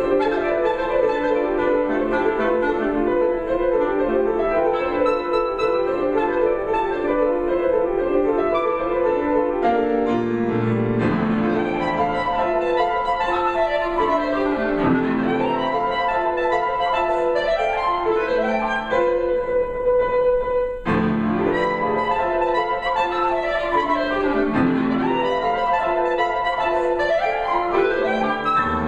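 Clarinet and piano playing a contemporary classical duo: busy, fast-moving clarinet lines over piano, with sweeping runs in the piano's low register. The music stops for a moment about two-thirds through, then carries on.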